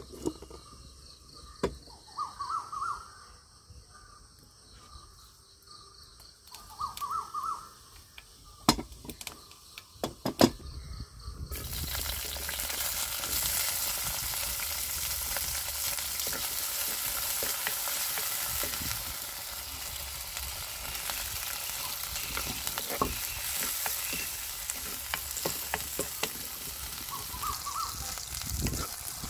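Shallots dropped into hot oil in a clay pot start sizzling suddenly about a third of the way in. The frying sizzle runs on as garlic, green chillies and curry leaves go in, and a wooden spoon knocks now and then against the pot while stirring. Before the sizzle there are faint bird calls and a few sharp clicks from a wooden spice box being handled.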